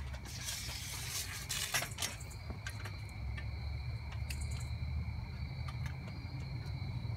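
Crickets trilling steadily at a high pitch, with footsteps scuffing over dry leaves and twigs on concrete, busiest in the first two seconds, over a steady low rumble.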